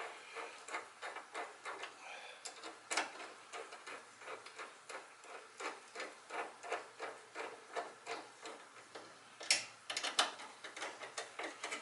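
Hand wrench ratcheting as it turns down a small bolt on a hood-strut bracket: a steady run of light clicks, about three or four a second, with a few louder clicks about three seconds in and near the end.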